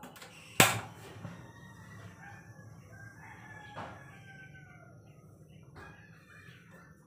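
A sharp click about half a second in and another near the middle, from the gas stove's burner knob being turned to light the burner, with a rooster crowing in the background.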